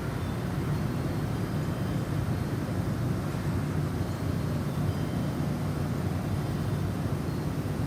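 Snowstorm wind blowing in a steady low rumble, with a few faint, brief high wind-chime tones now and then.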